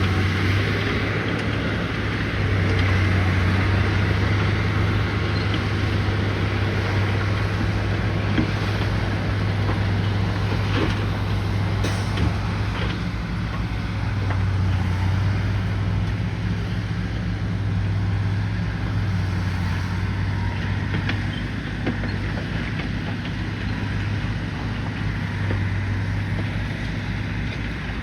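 A bulldozer's diesel engine runs steadily with a deep, even drone, and a few faint knocks sound over it.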